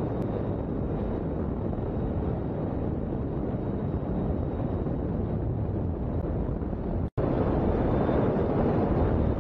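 Steady rush of wind on the microphone and engine noise from a speeding boat at sea. A brief dropout about seven seconds in, then a louder steady rush: the jet suit's turbines and wind heard close from the pilot's own camera.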